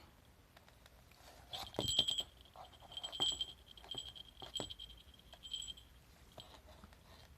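A small bell jingling in a run of short rings, struck about half a dozen times, mixed with light clicks and knocks; the loudest ring comes about two seconds in and the ringing stops near the end.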